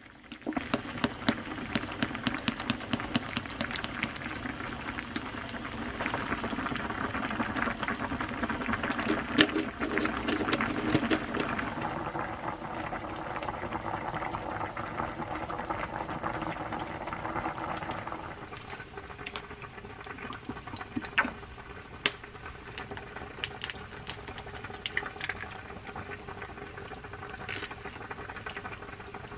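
Kimchi stew bubbling at a vigorous boil in a pot, a dense crackling bubble. About two-thirds of the way through it gives way to a quieter crackle with scattered sharp pops: an egg frying in oil in a pan.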